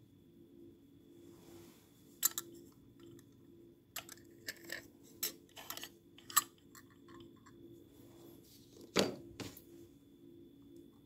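Metal tongs clicking and tapping against an aluminium source holder as a radioactive source is handled: a few sharp clinks, then a heavier dull knock about nine seconds in. A faint steady electrical hum runs underneath.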